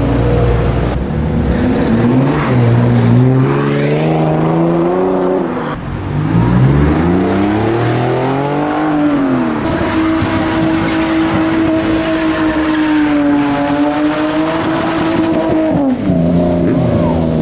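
Car engine revving hard, its pitch climbing and falling twice, then held high and steady for about six seconds before dropping sharply near the end.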